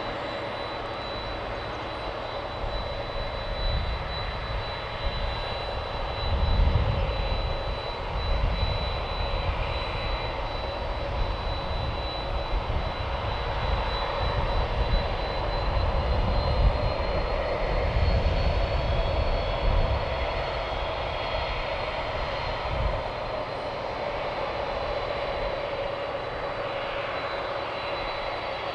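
Boeing 767 airliner's turbofan engines running at idle as it begins to taxi: a steady hum with a thin high whine that rises slightly about halfway through. Irregular low rumbles swell and fade for most of the first twenty seconds or so.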